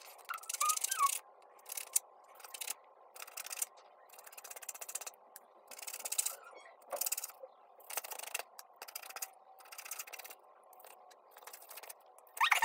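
Paintbrush scrubbing and swishing across paper as watercolour is laid on, in uneven strokes with short pauses between them.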